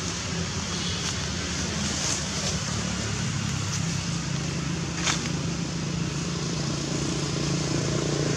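Steady hum of vehicle engines and traffic, with a single short click about five seconds in.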